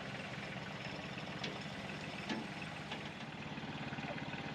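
Sawmill engine running steadily, with a few sharp knocks partway through.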